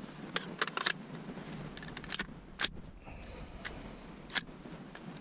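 Sharp metallic clicks and clacks of an AR-style rifle being handled and shifted on its rest, about seven irregular knocks, the loudest a little past two seconds in.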